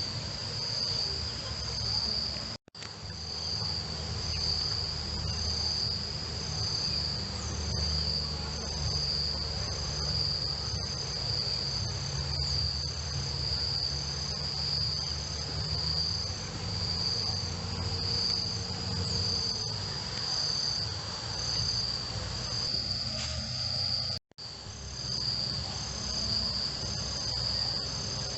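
Insects trilling in a steady, high-pitched chorus that swells and fades slightly in a regular pulse, over a low rumble. The sound cuts out for an instant twice, a few seconds in and near the end.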